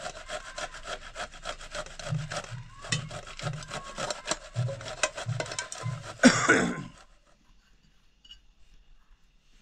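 Hand saw cutting wood with quick, regular rasping strokes. About six seconds in there is one loud sudden creak, after which the sawing stops.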